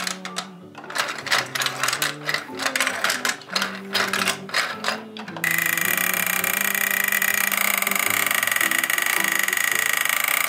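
Plastic clicking and rattling from a Thomas & Friends toy playset as the Percy engine is handled on its track, then, starting abruptly about five seconds in, a steady mechanical whir as the playset's green lift carries Percy up the ramp. Soft children's background music plays underneath.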